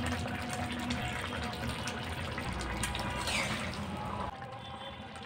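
Water being poured into a pan of frying chicken curry, a steady rushing pour that stops about four seconds in.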